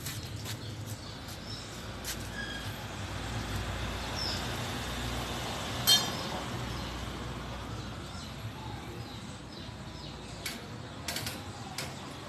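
Steady low outdoor background hum with a few faint bird chirps, and a single sharp knock about halfway through, with a few fainter clicks near the end.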